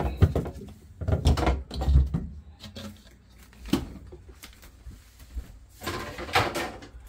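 Refrigerator trays and drawers being lifted and pulled out, with knocks and rattling clatter in the first two seconds, a single click a little later, and a longer scraping slide about six seconds in.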